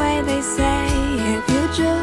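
Background music: a song with drums, bass and a melody line between the sung verses.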